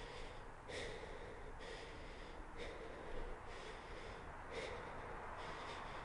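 Heavy human breathing: loud breaths in and out through the mouth, a new one starting about every second.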